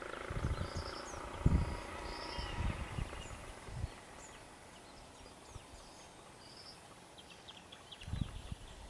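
Birds calling in the background with short, repeated high chirps, over irregular low thumps that come in the first few seconds and again near the end.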